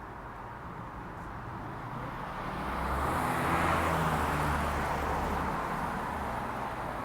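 A road vehicle passing by, its engine and tyre noise swelling to a peak about three and a half seconds in and then slowly fading.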